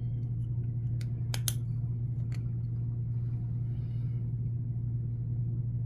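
Plastic Luna Magic powder highlighter compact being worked open by hand: four small sharp clicks of the lid and catch between about one and two and a half seconds in, over a steady low hum.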